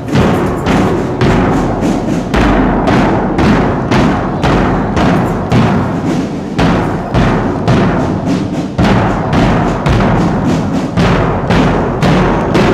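Marching drum band playing a steady, loud beat on large bass drums and other marching drums.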